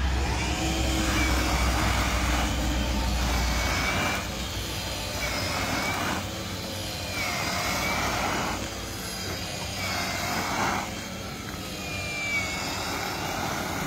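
EGO battery-powered multi-tool power head driving a rubber-paddle power broom, sweeping gravel out of grass. The motor whine and the spray of gravel surge about every two seconds with each sweep, the pitch rising and falling.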